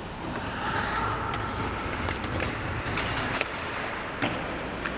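Hockey rink sounds: skate blades scraping across the ice, with a few sharp clacks of sticks and pucks scattered through.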